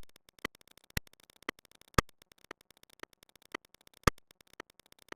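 Steady ticking, two ticks a second, with every fourth tick louder.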